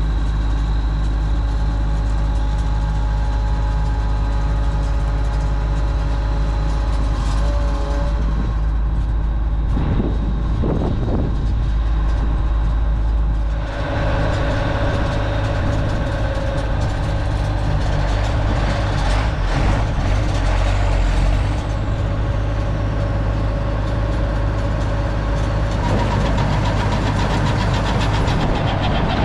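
Engine running steadily with a low hum, its tone shifting about fourteen seconds in.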